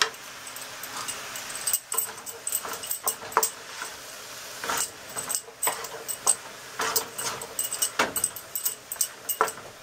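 Wooden spatula stirring sliced yellow squash in a nonstick pan, making irregular scrapes and knocks against the pan over a faint sizzle as the squash sautés on fairly high heat.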